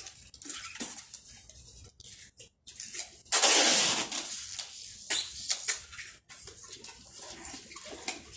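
Packing tape pulled off the roll in one loud rasp about three seconds in, among scattered rustles and light knocks of handling a cardboard box.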